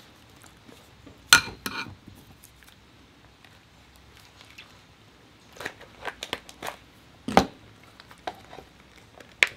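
Kitchen scissors cutting through the hard shell of a cooked lobster tail, and the shell being pried open: irregular sharp cracks and crunches, the loudest about a second in and again near seven seconds.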